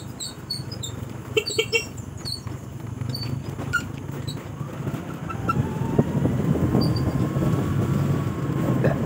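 Motorcycle engine running steadily on a rough dirt-and-gravel trail, with rattles and knocks from the bike jolting over bumps. The engine note rises and eases off again over the last few seconds.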